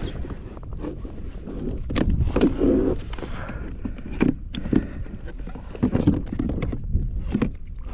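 Sea water sloshing and slapping against a kayak hull, with irregular knocks and a steady low rumble underneath.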